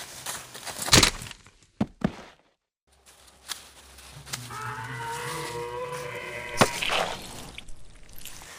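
Two sharp thumps, then a low, drawn-out moan from a person playing a zombie, lasting about two seconds, cut off by another thump.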